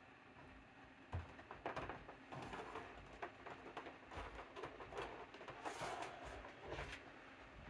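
Small cooling fan running with a faint steady hum. From about a second in, irregular clicks and rustles of handling at the bench.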